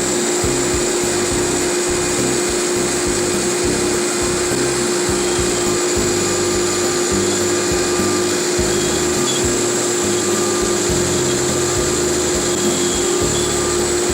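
CNC router spindle running and cutting wood, a steady whine over the rushing noise of cutting and dust extraction.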